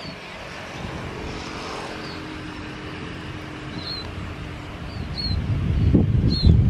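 Airbus A320 jet engines running steadily at taxi power, with short bird chirps over it. About five seconds in, a motorcycle passes close, its engine rumble swelling to the loudest sound near the end.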